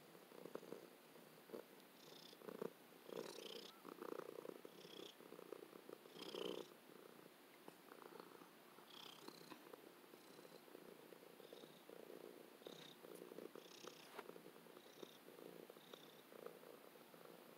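Domestic cat purring, faint and steady, heard close up. A few brief rustles and clicks sound over the purr, mostly in the first half.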